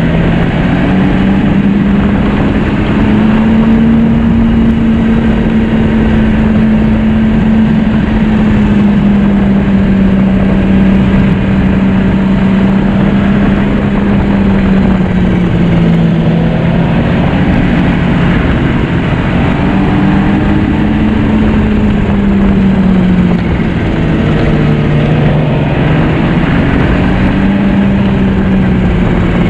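A 2009 Yamaha Vector snowmobile's four-stroke three-cylinder engine running on the move, over a steady rushing noise. Its pitch rises and falls gently several times, dipping about halfway through and again near the end.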